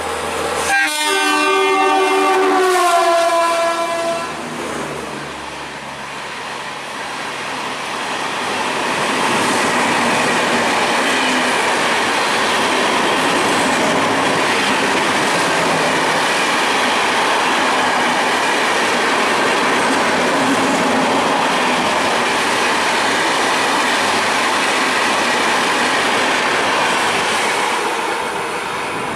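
Indian Railways express train sounding a multi-note horn about a second in, its pitch sagging over about three seconds. The train then passes at speed as a loud, steady rush of wheel and rail noise for about twenty seconds, easing off near the end.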